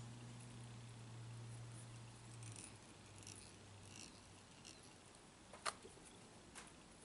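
Near silence: faint soft rustles and ticks of fingers twisting dubbing onto tying thread and winding it on a fly hook in the vise, with one sharp click a little after halfway. A faint low hum fades out about two and a half seconds in.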